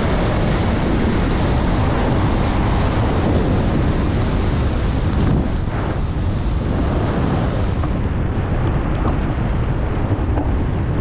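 Steady wind rushing over the camera microphone during a descent under an open parachute canopy.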